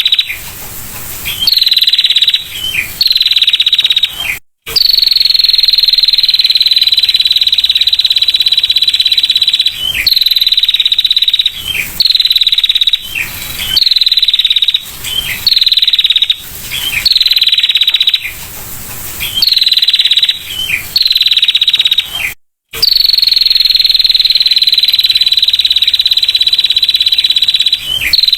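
Female prinia (prenjak) giving its rapid 'ngetir' trill: high, fast buzzy trills that start with a short falling note and then hold steady, repeated with short breaks, the longest about five seconds. The sound cuts out completely for a moment twice.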